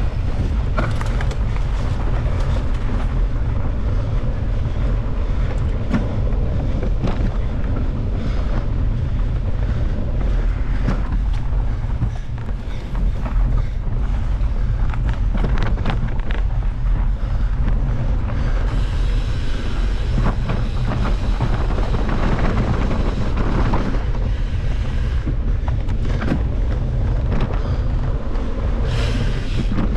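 Wind buffeting the microphone of a camera riding on a mountain bike at speed, a steady low rumble, with scattered clicks and knocks from the bike and its tyres on a dirt singletrack.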